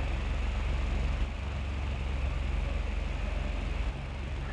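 Small electric mini ceiling fan running: a steady low motor hum with air rushing, dipping slightly in level about a second in and again near the end.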